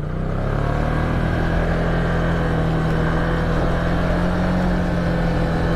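ATV engine running steadily, its pitch rising slightly in the first second and then holding even.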